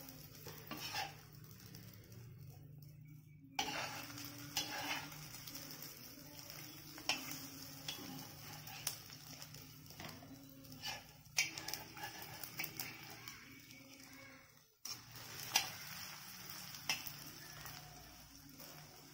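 Steel spatula scraping and tapping on an iron dosa griddle while folding a thin egg kalakki, over a faint sizzle.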